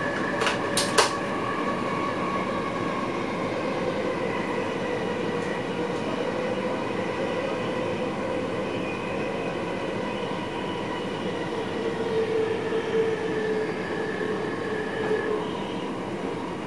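Train running, heard from inside the driver's cab: a steady rumble of wheels on rail with several held tones over it, and a few sharp clicks about a second in.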